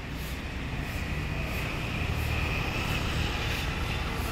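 A small scooter's engine running steadily at light throttle as the scooter rides slowly.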